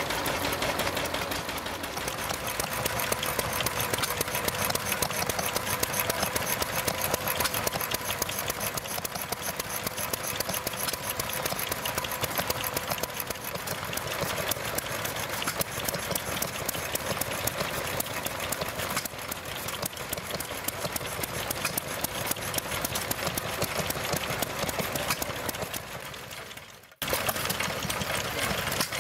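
Small vintage stationary engines running with a rapid, even firing beat. Just before the end the sound fades to a brief dip and another running engine follows.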